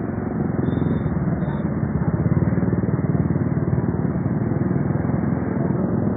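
Motorcycle engine running with a fast, steady pulse, a little louder about two seconds in.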